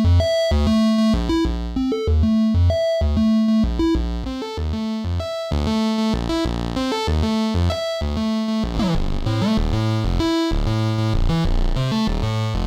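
Subtractive software synthesizer playing a rhythmic riff of short notes over a repeating bass line, with a falling pitch sweep about nine seconds in.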